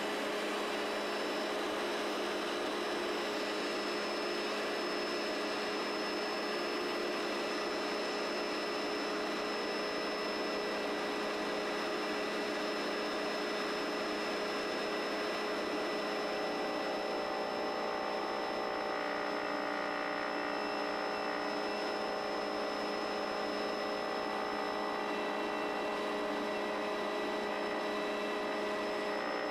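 Turbine helicopter in cruise, heard from inside the cabin: a steady rush of engine and rotor noise with a high turbine whine running through it. A few more steady tones join about halfway through.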